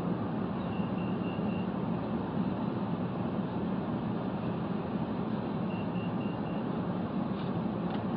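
Car engine idling steadily, heard from inside the cabin. Two faint series of four quick high beeps sound, about a second in and again about six seconds in.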